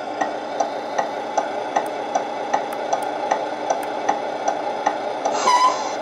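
A Tamiya MAN TGX RC truck's sound unit playing a simulated diesel engine at idle: a steady hum with a regular knock, about five knocks every two seconds. Near the end there is a short hiss of air, the truck's simulated air-brake release.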